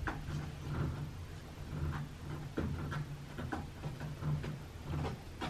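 A cat's claws scratching on a scratching post in a series of short rasping strokes, over a low steady hum.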